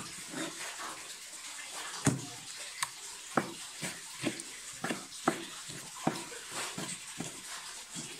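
Kitchen knife chopping beef into small pieces on a wooden cutting board: a run of sharp knocks, about two a second, beginning about two seconds in.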